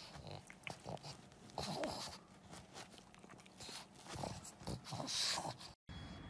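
A pug chewing and mouthing a plush toy, with irregular bursts of chewing and breathing noise close to the microphone. The sound cuts off abruptly near the end.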